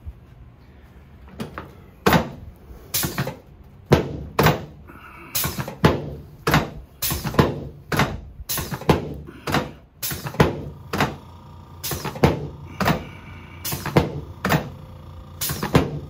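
Rapid, repeated knocks of a padded chiropractic adjusting table, about two a second, as the chiropractor thrusts again and again with crossed hands on the patient's lower back.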